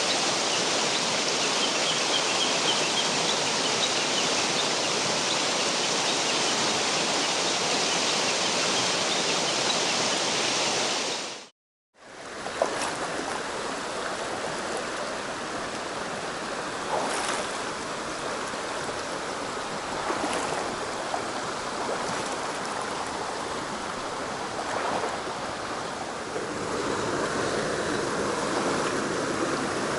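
Steady rush of a mountain stream flowing over rocks. It cuts out abruptly for a moment about a third of the way through, then resumes a little quieter, with a few faint ticks.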